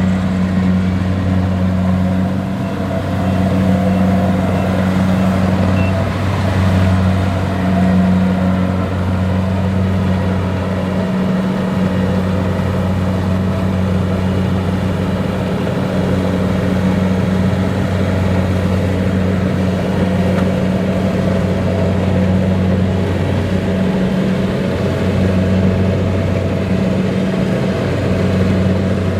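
Kubota DC-70 Plus rice combine harvester's diesel engine running steadily with a low drone while the machine harvests.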